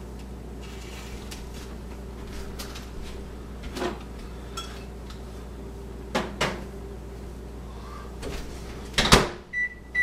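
A glass vase knocking a few times as it is set down inside an LG microwave oven, then the microwave door shut with a loud thump about nine seconds in, followed by short keypad beeps near the end.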